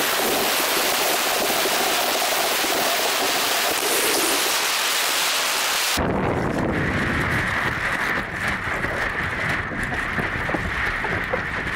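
Sea spray and splashing water hissing over the bow of a small inflatable catamaran as it punches through surf. About six seconds in the hiss stops abruptly, giving way to wind rumble and water washing along the hull.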